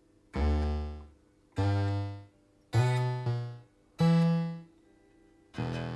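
ARP Avatar guitar synthesizer sounding five separate plucked notes at different pitches, each starting sharply and dying away within about a second, one bending in pitch midway. The notes are triggered from the guitar and show the repaired E-string gate working.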